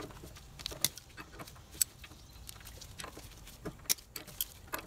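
A handful of sharp, scattered metal clicks and taps as pliers work a cotter pin out of the clutch bolt on a mini bike, with quiet in between.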